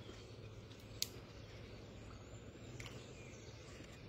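Faint outdoor background with a single sharp click about a second in and a softer click near three seconds.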